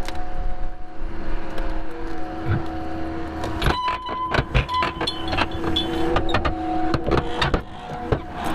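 Diesel engine of a John Deere 333G skid steer running steadily. From about three and a half seconds in there is a run of sharp clicks and clanks over it.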